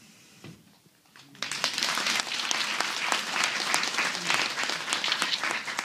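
Audience applauding: after about a second and a half of quiet, many people start clapping and keep on steadily.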